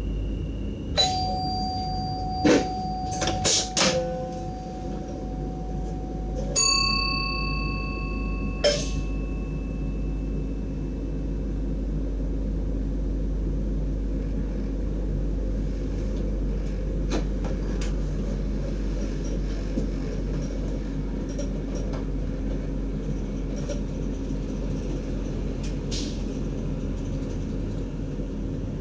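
Steady low running rumble inside the cab of a DDZ double-decker train. In the first nine seconds a series of short bell-like dings rings out, with a few fainter clicks later on.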